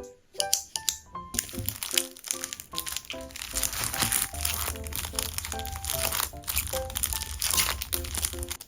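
Packaging crinkling and rustling as items are unwrapped by hand, over background music made of short, bright melody notes.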